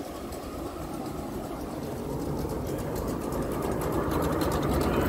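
A miniature-railway steam locomotive hauling its carriages approaches along the track, growing steadily louder. A quick, even rhythmic beat sounds over the rumble of wheels on the rails.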